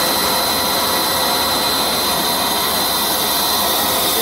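Bread crumb food extrusion line running steadily: a continuous machine noise with a steady high whine.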